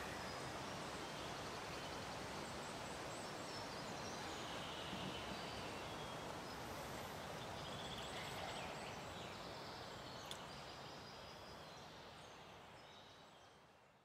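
Faint woodland ambience: a steady background hush with scattered short bird calls, and a single click about ten seconds in. It fades out over the last few seconds.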